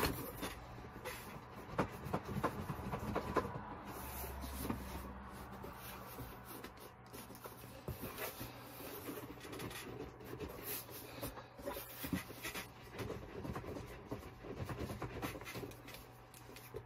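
Cardboard packaging being handled and wrestled with: irregular scraping, rustling and small knocks as a boxed figure is worked out of a tight-fitting box.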